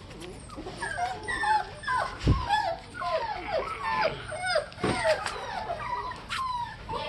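A litter of Lhasa Apso puppies whining and yipping together, many short high cries falling in pitch and overlapping: puppies begging to be fed at breakfast time.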